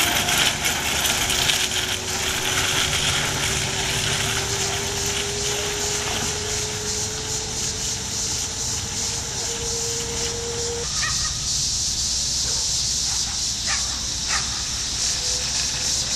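A faint whine rising slowly in pitch for about eleven seconds, the electric motor of a converted Kettcar go-kart speeding up as it pulls away, heard over a steady outdoor hiss. The whine cuts off suddenly, leaving only the hiss and a few short, faint distant calls.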